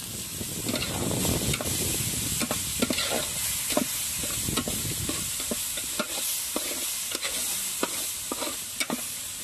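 Onion and spice pastes frying in hot mustard oil in a kadai, sizzling steadily while being stirred, with irregular scraping clicks of the stirrer against the pan. This is the masala being fried before water is added.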